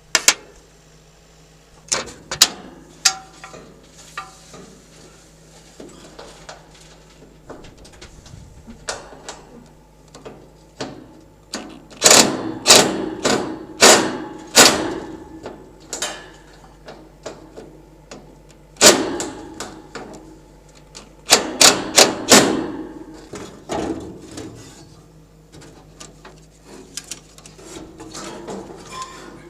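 Hammer blows on metal, each with a short metallic ring. A few scattered strikes, then two quick runs of heavy blows, about five starting some twelve seconds in and about four starting some twenty-one seconds in.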